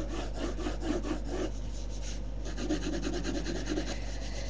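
Colour pencil shading on paper in quick, even back-and-forth strokes, about six a second, with a short pause near the middle.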